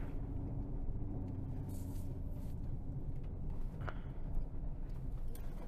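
Steady low rumble of a car's engine and tyres heard from inside the cabin while driving slowly.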